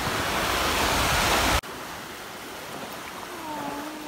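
Steady rush of wind and shallow sea water at the shore. About one and a half seconds in it cuts off suddenly to a quieter stretch of gentle water sound, with a faint short whine near the end.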